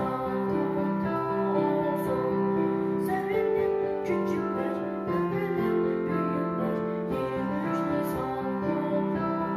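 Digital piano playing a slow piece: a melody over long-held low notes and chords.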